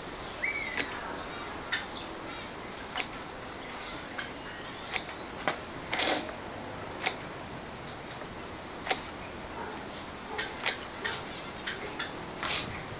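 Scissors snipping strips of masking tape: sharp, irregular clicks about once a second, with the longer rasp of tape pulled off the roll around six seconds in and again near the end.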